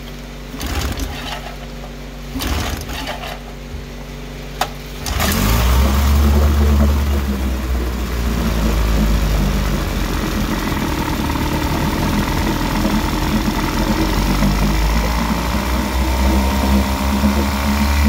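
1958 Johnson 18 hp FD-12 two-stroke outboard motor cranked a couple of times, catching about five seconds in and then running steadily. It is a cold first start after a carburetor rebuild, on choke, with the needles at rich initial settings.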